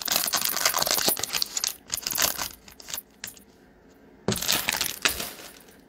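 Foil wrapper of a Bowman Chrome trading-card pack crinkling as it is torn and peeled open, then crinkling again in a second short burst a little after four seconds in.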